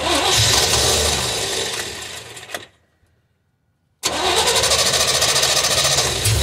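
Cammed Vortec truck engine firing up for the first time on a newly installed four-barrel carburetor and running for a couple of seconds. The sound cuts out dead for about a second, then the engine is heard running again.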